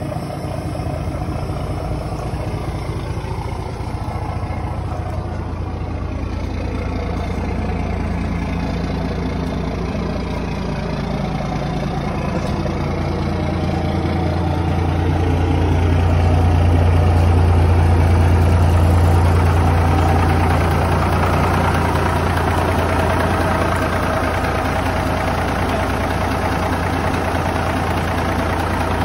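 Peterbilt 379 semi truck's diesel engine idling steadily with a low hum, growing louder through the middle and then easing off a little.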